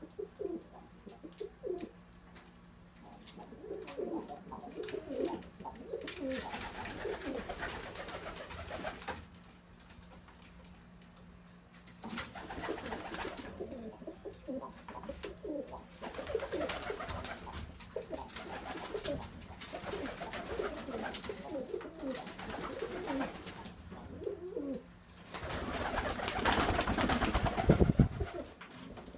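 Several domestic pigeons cooing, with short low rolling calls repeating over and over. Stretches of rushing noise come and go, the loudest near the end.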